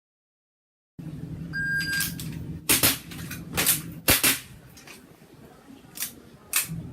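A shot timer's start beep, then an airsoft pistol firing quick pairs of shots: three pairs, a quieter gap, then two more shots near the end.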